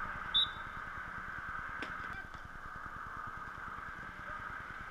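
A short, loud blast of a field hockey umpire's whistle about half a second in, over a steady hiss of pitch-side ambience, with a single sharp click a little under two seconds in.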